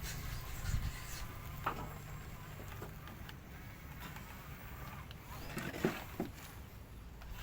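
Heavy construction machinery engine running with a steady low rumble, with a few short knocks, the clearest about two seconds in and a cluster near the end.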